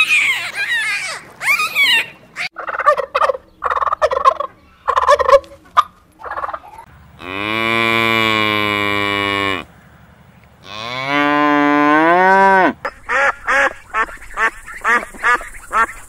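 Dolphins whistling and chattering in short arched calls with a few clicks, then two long cow moos, the second rising in pitch. Near the end, domestic geese honk rapidly, several honks a second.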